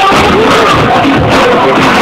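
Loud dance music with a steady beat, played for a dance battle.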